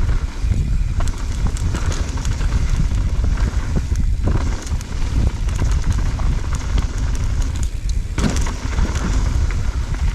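Mountain bike riding down a rough dirt trail: tyres crackle and the bike rattles over stones and roots, with a heavy wind rumble on the helmet-mounted camera's microphone.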